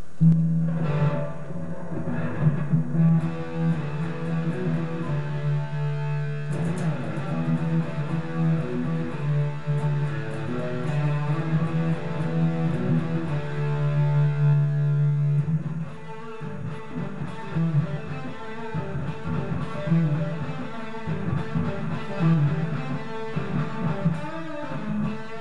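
Electric guitar, a Fender Player Telecaster with Noiseless pickups, played through overdrive: sustained distorted chords and single-note lines.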